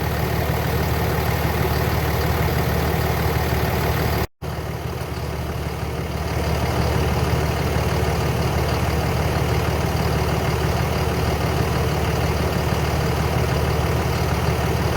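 Car engine idling steadily, with a brief dropout in the sound about four seconds in.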